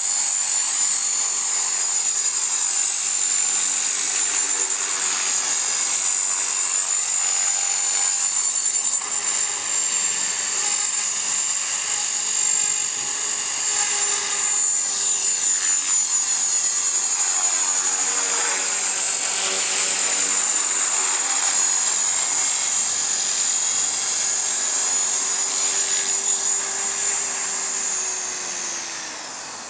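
450-size radio-controlled model helicopter flying, its motor and rotor head giving a steady high-pitched whine. Near the end the pitch falls and the sound fades as the rotor spools down.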